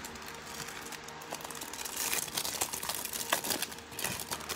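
Foil-lined trading-card booster packet being torn open, its wrapper crinkling in a run of fine crackles that grows louder about halfway through.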